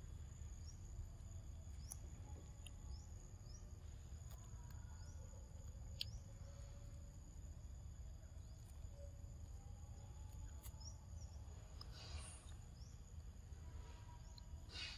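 Faint outdoor ambience: a steady high-pitched insect drone with scattered short bird chirps over a low rumble. A few sharp clicks and two brief crunches, the later one near the end, come from a macaque biting into and chewing a green mango.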